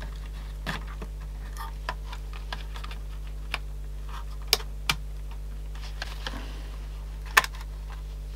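Light clicks and taps of small plastic parts being handled and fitted as a Sanyo M-G95 cassette Walkman is reassembled. The clicks are scattered and irregular, with the sharpest two about halfway through and one more near the end. A steady low hum runs underneath.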